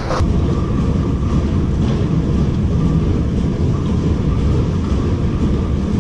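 Industrial machinery running in a bottle-sorting plant: a steady low rumble with a faint, even hum above it.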